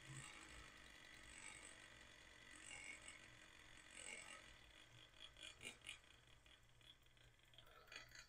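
Faint whir of a Weeden No. 670 toy electric engine driving a hoisting drum through its pulley and small gears, with a run of light clicks about five seconds in and again near the end.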